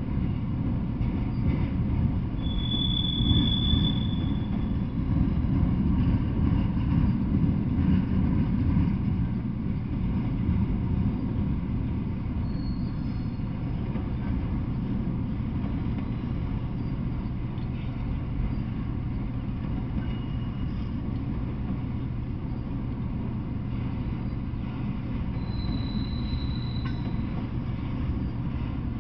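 Freight train of autorack cars rolling past: a steady rumble of steel wheels on rail, with brief high wheel squeals three times, a few seconds in, about halfway through, and near the end.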